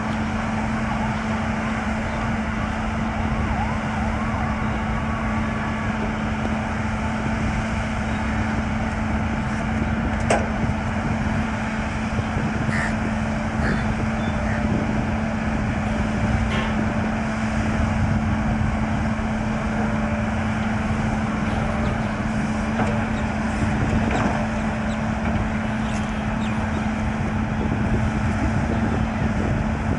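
JCB backhoe loader's diesel engine running steadily with a constant hum, with a few sharp knocks, the clearest about ten seconds in.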